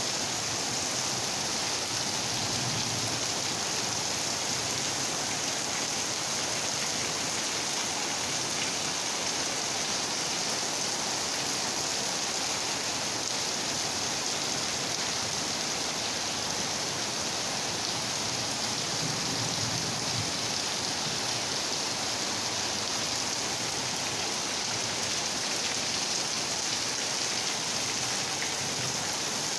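Steady rain falling, an even hiss of drops on surfaces with no thunder.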